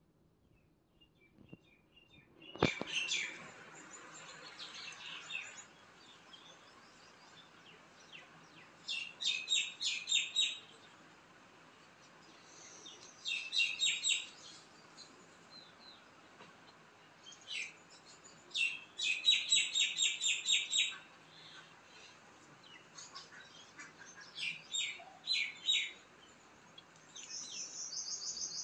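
Small birds chirping in quick runs of high notes, coming in several bursts, with a higher whistled note near the end. A single sharp knock about two and a half seconds in.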